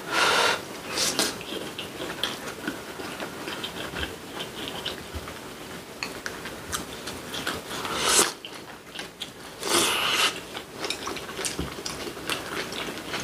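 Close-miked eating: wet chewing and biting of soft braised kimchi and rice, with small clicks of chopsticks on bowls and a few louder short bursts near the start and around eight and ten seconds.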